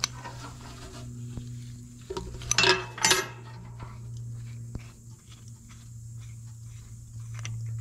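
Hands unscrewing and handling a metal fuel-line fitting on a dozer's fuel filter: light metal clinks and ticks, with a few sharp squeaky scrapes about two to three seconds in. A steady low hum runs underneath.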